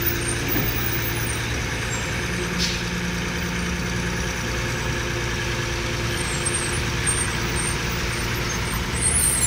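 Mobile crane's engine running steadily as the crane swings a steel I-girder on its hook, a constant low drone.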